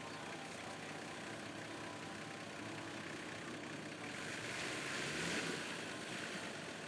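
Four-wheel-drive competition vehicle's engine running at a distance under a steady outdoor hiss; about four seconds in the hiss swells louder for a second or so and then eases.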